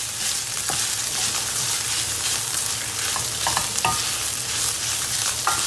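Minced beef, onions and tomato paste sizzling in a frying pan while a wooden spoon stirs and scrapes through them, with a few short scrapes against the pan about three to four seconds in and near the end. The tomato paste is being fried until it starts to stick to the bottom of the pan.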